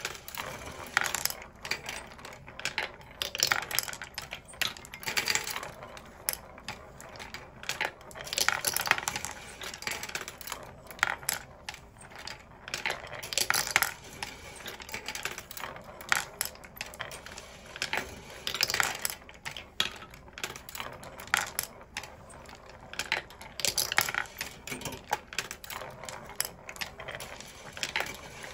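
17 mm glass marbles clicking and clattering as they roll and drop through a wooden marble machine, in an irregular run of sharp clicks with a louder cluster every few seconds.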